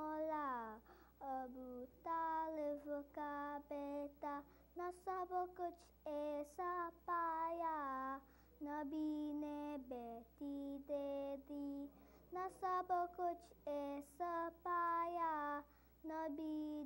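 A boy singing an Urdu manqabat in praise of Imam Ali, alone with no instruments: one high melodic line in phrases a second or two long, with short breaks between them.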